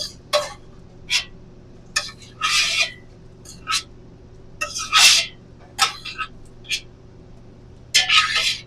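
Cooking utensils against a frying pan: a dozen or so short knocks and clinks with two longer scrapes, about two and a half and five seconds in, over a steady low hum.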